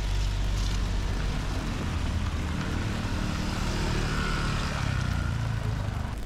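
Street traffic on wet cobblestones: a van and a motor scooter driving by, a steady engine rumble with a hiss over it.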